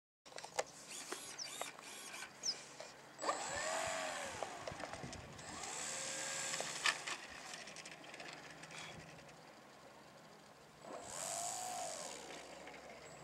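Electric brushless motor and propeller of a Graupner Kadett RC plane whining in flight, its pitch swelling up and falling away three times as the plane passes, about four, six and eleven seconds in. A few sharp clicks near the start.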